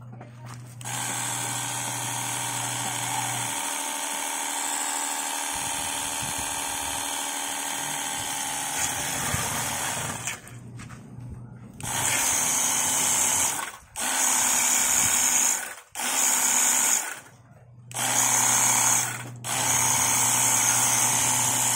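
INGCO CPWLI20082P cordless lithium-ion pressure washer running its pump motor steadily for about nine seconds. Then it starts and stops in five short, louder bursts, each with a hiss of spray as foam shoots from the foam-cannon bottle.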